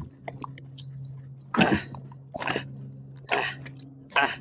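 Wooden fish club striking a halibut held up on a stringer: four blows a little under a second apart, the first about a second and a half in.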